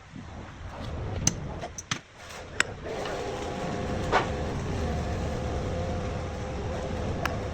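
Scattered knocks and clicks for about two seconds, then a motor starts and runs steadily with a low hum and a steady whine.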